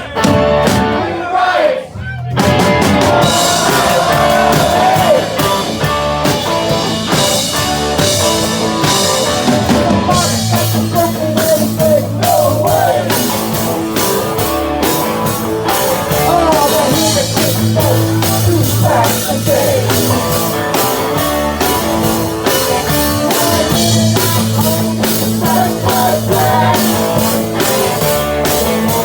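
Rock band playing live with drums and singing; the sound thins briefly and the full band comes in about two seconds in.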